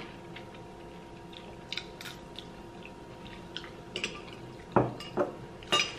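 Eating at the table: a metal spoon clinking and scraping in a glass bowl, with chewing. Scattered small clicks, then a few louder clinks near the end.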